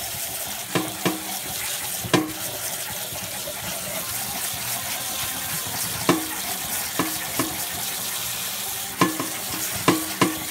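Kitchen tap running steadily over sliced mushrooms in a plastic colander in a stainless steel sink, the water splashing. A few short sharp knocks sound here and there.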